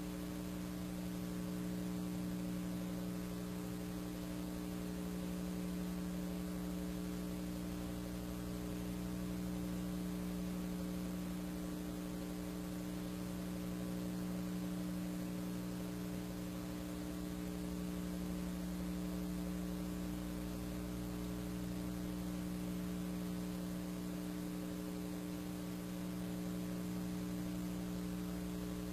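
Steady electrical mains hum with a faint hiss underneath, unchanging throughout.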